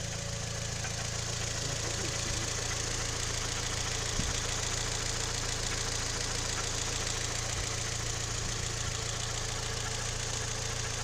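Toyota 3ZR-FAE 2.0-litre four-cylinder engine idling warm with a rapid, even knocking tick running through it, a noise that appears only once the engine is warmed up.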